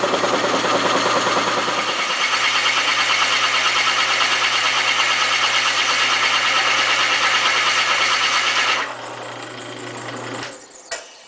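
Drill press boring into the end grain of a pine block with a Forstner bit: a loud, steady cutting noise over the motor's hum. About nine seconds in the cutting stops as the bit lifts out, leaving the quieter hum of the motor, which fades near the end.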